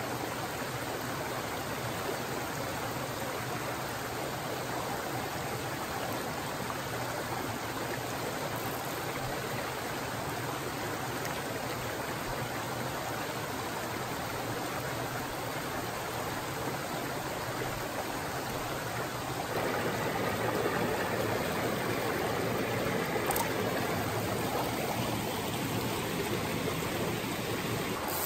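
Steady rush of water from a small rocky mountain stream running over riffles. About two-thirds of the way in it steps up louder and fuller, with a small waterfall pouring into a pool close by.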